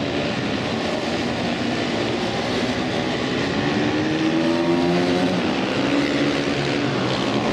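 Several supermoto motorcycle engines revving at once, their overlapping pitches rising and falling as the bikes brake and accelerate through a corner.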